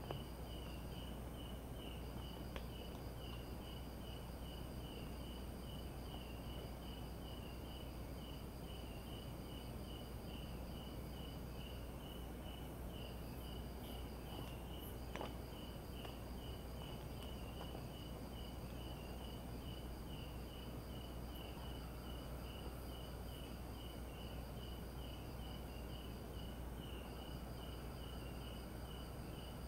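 Night insects: crickets chirping in an even, repeating pulse, over steady high-pitched trills from other insects that break off briefly now and then.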